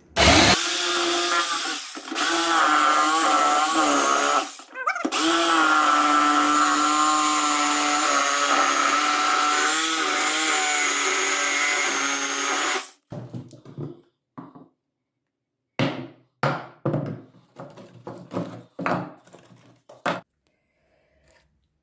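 Electric jigsaw sawing lengthwise through a wooden floorboard, its motor running at a steady pitch for about thirteen seconds with a brief stop about four and a half seconds in. After it stops, a series of short knocks and clatters follows.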